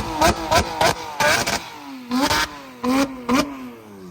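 A performance car's engine on the overrun after a rev, its exhaust popping and crackling with about eight sharp bangs, then the engine note falling in pitch and fading near the end.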